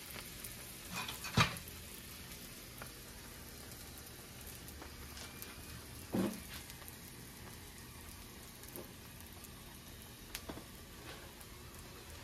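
Aloo paratha frying in ghee on a hot tawa, a steady sizzle. There are two short knocks, about one and a half seconds and six seconds in.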